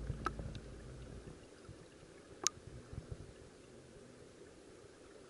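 Faint, muffled underwater stream sound picked up by a camera submerged in its waterproof housing, with a low rumble that dies away over the first second and a few scattered clicks, the sharpest about halfway through.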